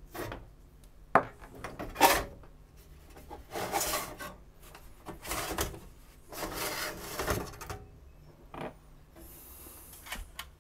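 Aluminium lamp chassis of a computed-radiography scanner's plate eraser being slid out of its sheet-metal housing. There is a sharp click and then a knock a second or two in, followed by three scraping rubs of the chassis against the housing, and a small click near the end.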